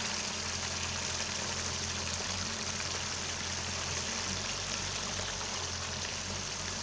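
Coconut-milk curry boiling in a pot, a steady bubbling hiss, with a low hum underneath.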